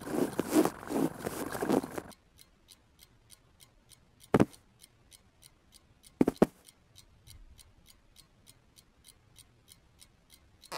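A ticking clock, about three ticks a second, in an otherwise quiet room. It follows two seconds of scratchy rustling and is broken by two short, sharp knocks about four and six seconds in.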